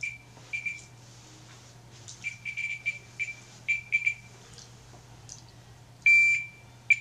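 Digital multimeter's continuity beeper giving short, irregular high-pitched beeps as its probe is run over an earthing sheet, each beep marking contact with one of the sheet's silver threads; one longer beep comes about six seconds in.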